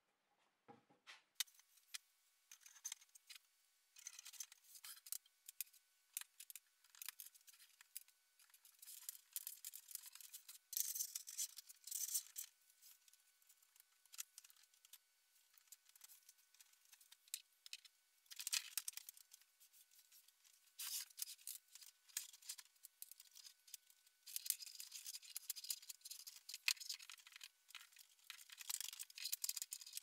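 Hands handling cables and 3D-printed plastic case parts while fitting a small server into its enclosure: faint, irregular clicks, scrapes and rustles.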